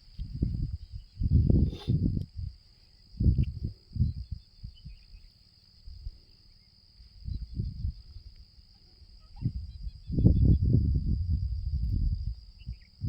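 A steady high insect drone, like crickets, runs under irregular low rumbles and thuds. The rumbles come in clusters, loudest from about ten seconds in.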